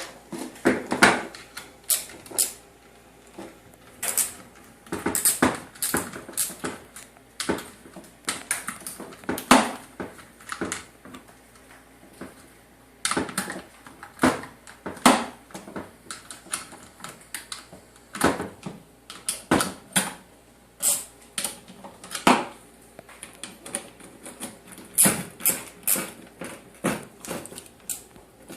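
Irregular metallic clicks and clinks of hand tools and screws as the mounting screws are driven in to fasten an electric radiator fan motor onto its fan assembly, some clicks in quick runs with short pauses between.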